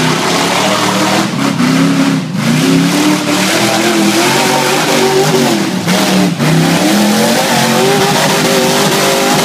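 Rock bouncer buggy's engine revving hard under load as it climbs a steep muddy hill, its pitch rising and falling again and again as the throttle is worked.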